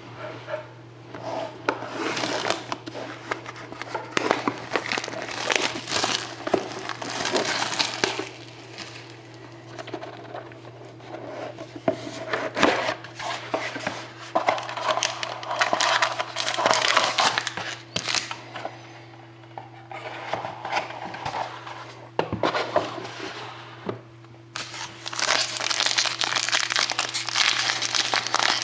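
Plastic shrink-wrap and packaging crinkling and tearing in irregular bursts as a sealed box of trading cards is unwrapped and opened by hand, over a steady low electrical hum.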